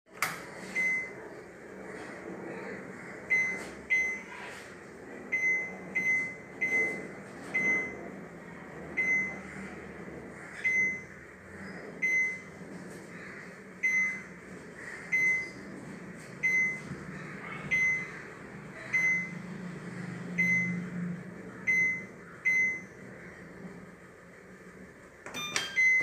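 IFB Eva Aqua VX front-loading washing machine's control panel beeping as its program selector knob is turned: about twenty short, identical high beeps, one per step, spaced irregularly from about half a second to a second and a half apart. A quick cluster of clicks comes near the end.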